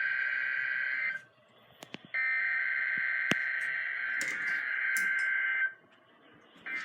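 NOAA Weather Radio SAME header data bursts, a buzzing two-tone data signal from a weather radio's speaker that marks the start of the Required Weekly Test. One burst ends about a second in, the next runs for about three and a half seconds, and a third starts near the end, with short silent gaps between them.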